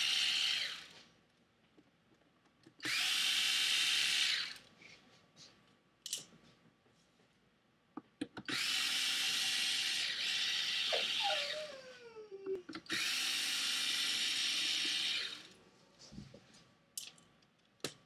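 Electric screwdriver with a T8 Torx bit backing out the iMac's bottom screws, running in short bursts with pauses between: the end of one run, then three more. Past the middle a dog whines once, falling in pitch.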